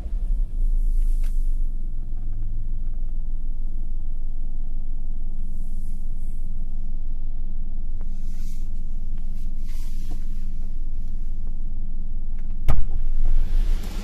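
Maruti Suzuki Alto K10 engine idling steadily just after a cold start, its fast idle easing down to normal idle as it warms. One sharp thump sounds near the end.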